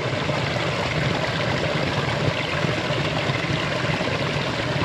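Small waterfall pouring over boulders into a shallow pool: a steady rush and splash of falling water.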